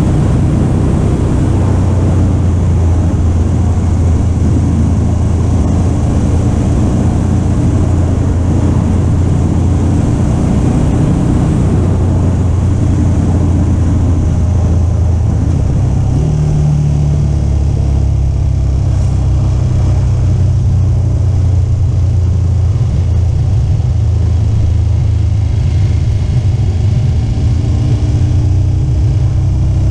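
KTM 1290 Super Adventure S's V-twin engine running under way at cruising speed, with a steady wind rush; the engine note steps up in pitch about halfway through.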